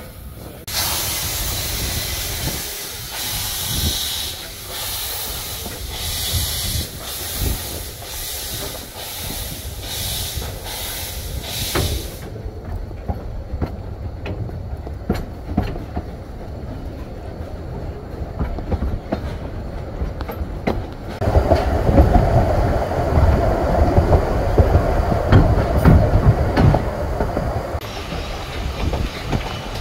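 Narrow-gauge steam locomotive pulling away: a loud hiss of steam that pulses with the exhaust beats for the first dozen seconds, then dies down. From about two-thirds of the way in, the carriage rumbles and clatters along the track.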